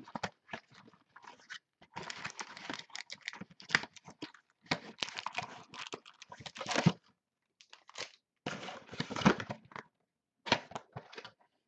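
A 2012 Panini Momentum football card box being torn and pulled open by hand: irregular bursts of cardboard tearing, scraping and rustling, with two short pauses in the second half.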